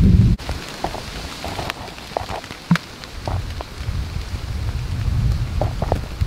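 Light rain falling, with scattered drops ticking on leaves and branches. A low rumble cuts off abruptly just after the start.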